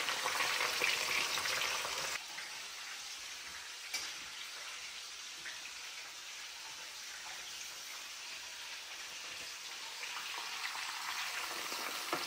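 Onion and bell pepper pieces frying in hot oil in a stainless steel pan: a steady, crackling sizzle. It drops in level about two seconds in and comes back up near the end.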